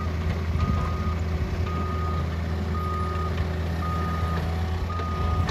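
Mini excavator's diesel engine running steadily while a backup alarm beeps in a regular on-off pattern, about one half-second beep per second.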